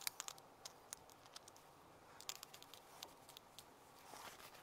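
Faint, irregular small clicks and scrapes from a screwdriver turning a small screw into a grey plastic pipe cap, with the cap handled in the fingers.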